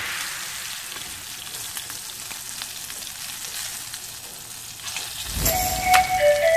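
Floured prawns sizzling in hot oil in a wok, the frying hiss slowly fading as the prawns are lifted out. Background music comes in near the end.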